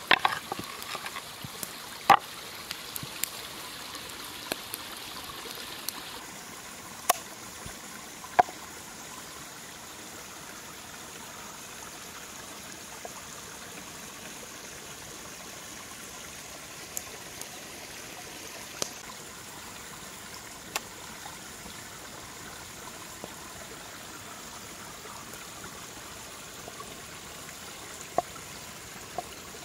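Steady sound of running water, with a few isolated sharp clicks and knocks, the loudest in the first nine seconds.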